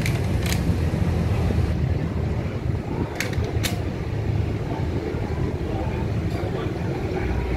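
Steady low rumble of road traffic mixed with faint distant voices. Two pairs of brief sharp clicks, one pair right at the start and another about three seconds in.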